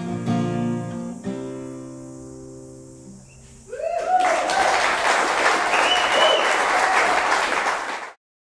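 Acoustic guitar's final chord ringing out and fading away over about three seconds, then applause with some cheering breaks out and stops suddenly near the end.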